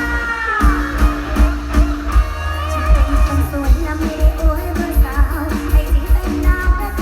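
Live mor lam music played loud through a concert sound system: a heavy, steady bass-drum beat under plucked strings and a singing voice.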